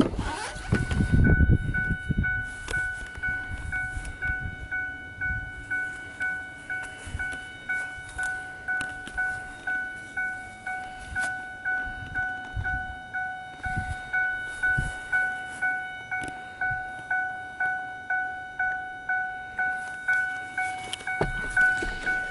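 2008 Ford F-250 Super Duty's door-open warning chime dinging steadily, one clear ding about three times every two seconds. Near the start the crew cab's rear door is unlatched and swung open with a clunk and handling noise.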